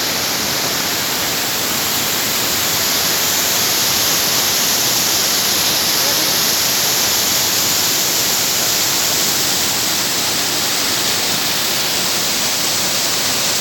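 Waterfall: the steady, loud rush of falling water.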